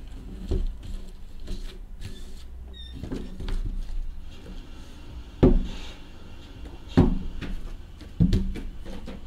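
Cardboard boxes of trading cards being handled and stacked on a table: soft sliding and dull knocks, with three louder thuds in the second half as boxes are set down.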